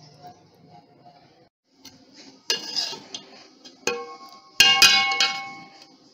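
A metal ladle clanking and scraping against the side of a metal cooking pot (handi) as it stirs a thick meat curry. There are three bouts of knocks from about halfway in, each ringing briefly, and the last bout is the loudest.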